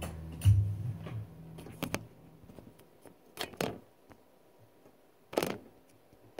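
Handling noise from a guitar and the recording phone. About half a second in there is a short low boom from the guitar body. Then come scattered knocks and bumps: a close pair around the middle and the loudest one near the end, as he lowers the guitar and reaches toward the phone.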